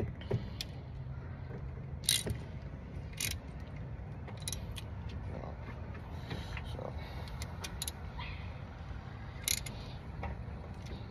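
Scattered metallic clicks and clinks of hand tools working on a car battery's negative cable terminal, a few sharp ones spaced seconds apart over a steady low hum.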